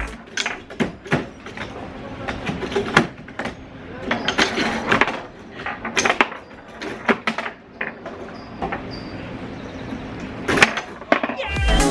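Irregular knocks, clicks and clatter of objects being handled, over a quiet background hiss.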